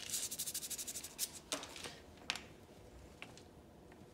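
Hands handling thin wooden oar cut-outs on a painted wooden sign: quick light scratching for about a second and a half, then a few scattered small clicks and taps.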